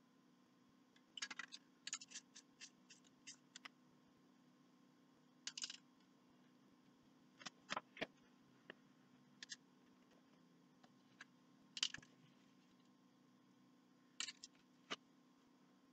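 Faint, scattered short rustles and clicks in small clusters, from paper sheets and masks being handled and pressed down on a spray-painted picture. No spray can is heard.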